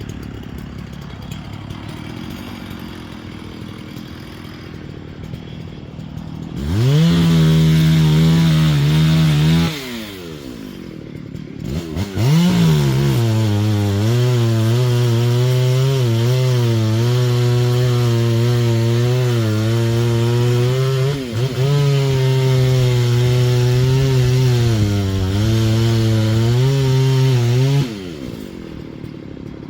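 Chainsaw idling, then revved once briefly at full throttle and dropped back to idle. It then runs a long cut through dead pine wood for about fifteen seconds, the engine pitch lower than at free rev and sagging twice under load, before falling back to idle near the end.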